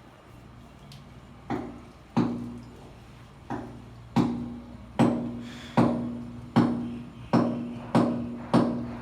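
A run of about ten sharp knocks, like hammer blows, each leaving a short ringing hum; a few scattered ones at first, then a steady beat of a little over one a second.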